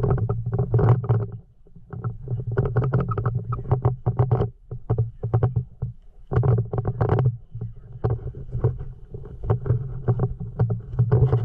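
Footsteps crunching on dry dirt and gravel, several a second in irregular runs with short pauses, over a low rumble.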